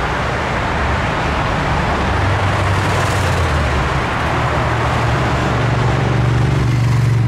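Busy road traffic passing close by: cars and an articulated city bus, with tyre rush and engine hum. A deep engine drone grows louder toward the end, then cuts off suddenly.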